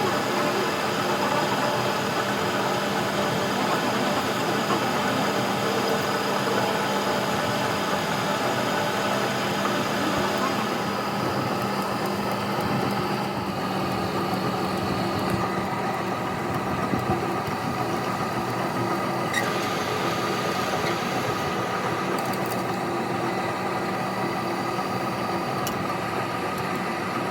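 A machine running steadily with a constant hum and noise; its high hiss drops away about halfway through.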